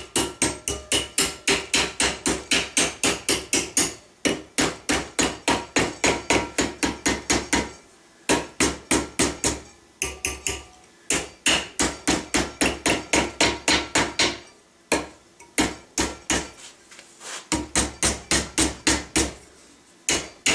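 Rapid hammer blows on a steel punch, about four or five a second in runs with brief pauses, folding a ramrod thimble's sheet-metal tang down over a mandrel clamped in a bench vise.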